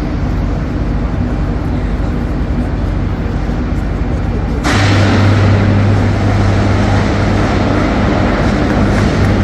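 Electric arc furnace running: a loud, steady rushing and crackling noise over a deep electrical hum. About five seconds in the arc steps up, louder, with a much stronger hum and more hiss.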